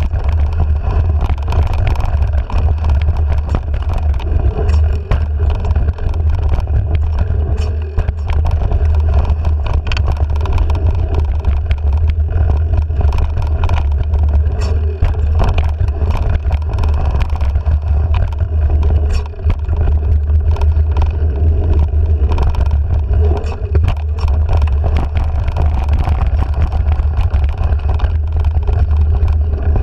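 Steady low wind rumble on a handlebar-mounted action camera's microphone, with the rattle and small knocks of a bike riding over a dirt singletrack trail.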